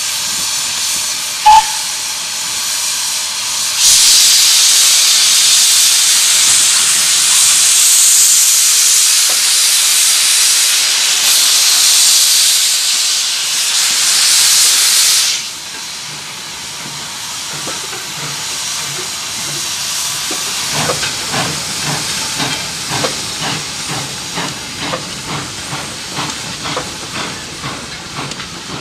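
Lancashire & Yorkshire Railway 0-4-0 saddle-tank 'Pug' steam locomotive. There is a brief loud pip about a second and a half in. Then steam hisses loudly from the open cylinder drain cocks for about eleven seconds and cuts off suddenly. After a pause, steady exhaust chuffs come at about two or three a second as the engine pulls its wagons away.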